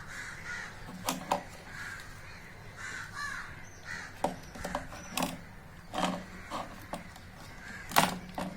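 Sharp irregular clicks and knocks, about eight in all with the loudest near the end, from wire connectors being unplugged from a home theatre amplifier's circuit board. Crows caw in the background.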